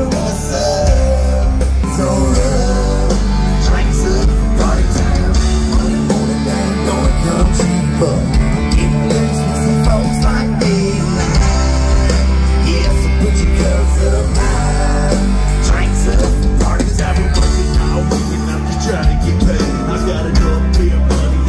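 Live band playing a rock song loud through a festival PA, with a singer over guitar and a steady heavy bass.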